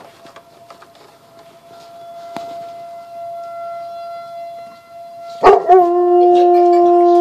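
A distant outdoor severe-weather warning siren holds a faint, steady tone, sounded as a monthly test. About five seconds in, a dog breaks into a loud, long, held howl along with it.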